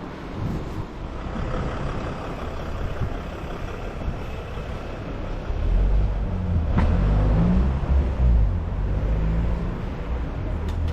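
Street traffic noise, with a heavy road vehicle's engine rumbling loudly past for a few seconds from about halfway through, and a brief sharp click in the middle of it.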